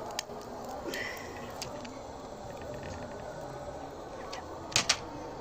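Egg frying in hot oil in a pan, a steady faint sizzle with scattered small crackles and pops. Two sharp clicks in quick succession near the end.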